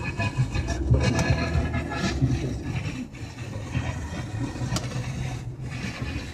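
Car radio playing a distant FM station with weak, noisy reception; the sound drops out briefly about three times as the signal fades.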